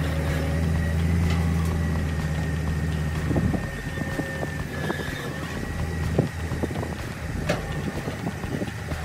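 Wheel loader's diesel engine running steadily; its low note drops about three and a half seconds in. A few sharp metal knocks follow.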